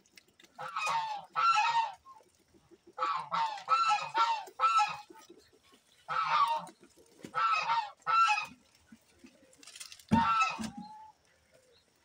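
Farmyard fowl calling repeatedly, in quick runs of one to four calls with short pauses between. A low thump comes about ten seconds in.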